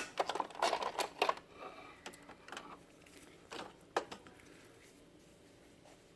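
Plastic clicks and rattles of the HP LaserJet M425 MFP's document-feeder rollers being pulled back against their spring tension and released. The clicking is busiest in the first second and a half, then comes as a few single clicks, the sharpest about four seconds in.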